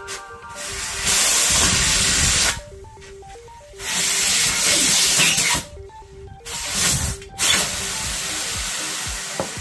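Long bursts of hissing spray, about three or four, each lasting a second or two with short gaps between, over background music.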